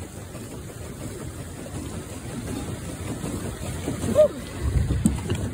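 Swan pedal boat moving across a lake: a steady low rumble of water churning and wind on the phone microphone, growing louder toward the end. Brief faint voices come about four seconds in.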